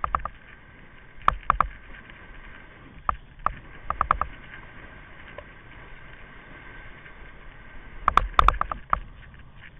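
Kite buggy rolling fast over hard sand: a steady rushing noise, broken by clusters of sharp rattling knocks as the buggy jolts over bumps, the biggest cluster near the end.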